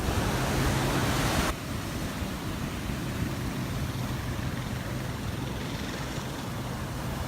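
Gulf surf washing on the beach: a loud wash of hissing water for the first second and a half, then a softer steady surf hiss. A faint steady low hum runs underneath.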